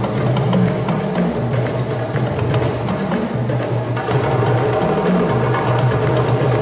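Four djembe hand drums played together in a fast, busy rhythm of many quick strokes over deep bass tones.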